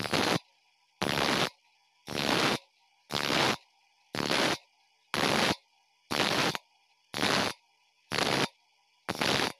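Bench grinder wheel grinding the teeth of a bandsaw blade one tooth at a time: short, even grinding strokes about once a second, with almost silent gaps between them as the blade is moved on to the next tooth.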